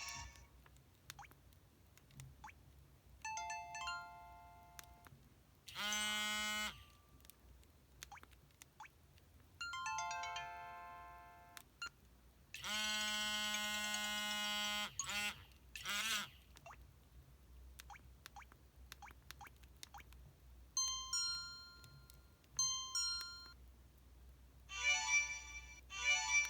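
A series of short electronic effect tones from an EVER EV-W420 'Slim Panda' mobile phone: about eight separate brief chimes and jingles with pauses between them, some stepping down in pitch, one longer one with a sliding tone.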